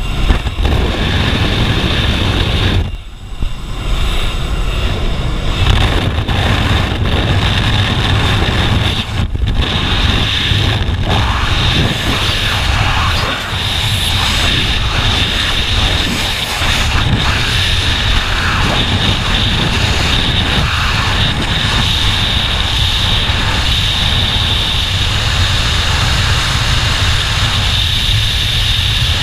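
Loud, steady wind rush with a jump plane's engine droning at the open door, carrying on into freefall wind noise on the jumper's microphone. The level dips briefly about three seconds in.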